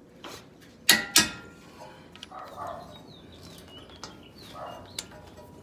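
A click-type torque wrench clicking twice, sharp and metallic, about a second in, as the steering knuckle's ball joint nut reaches the set torque of 81 ft-lbs. Faint bird chirps follow.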